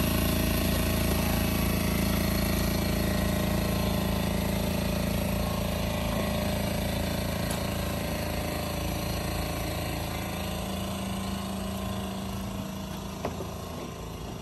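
Harbor Freight Predator 2000 inverter generator's small single-cylinder engine running steadily, growing gradually fainter. A few light knocks near the end.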